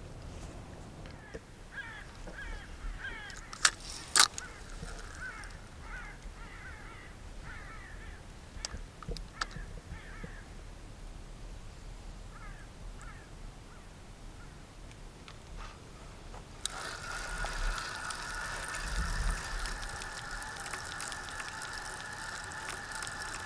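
Short repeated bird calls in the first half, with two sharp clicks about four seconds in. From about seventeen seconds a boat motor starts up with a steady high whine and hiss.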